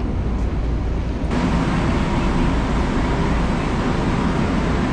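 Train noise: a steady low rumble with a hiss over it. About a second in, the hiss suddenly becomes louder and brighter.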